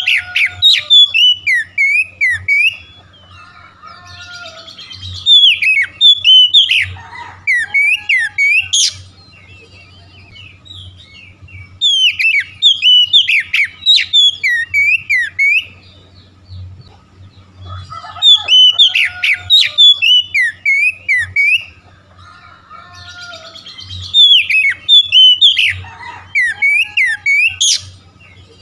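Oriental magpie-robin (kacer) singing: loud bursts of rapid whistles and chirps that slide up and down, each burst about three seconds long, coming roughly every six seconds. This is the kind of song played as a lure to set another kacer singing.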